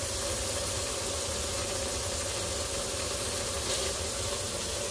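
Water running steadily from the faucet down the sink drain and through the garbage disposal, a constant rushing hiss with a low rumble, run to check the new install for leaks.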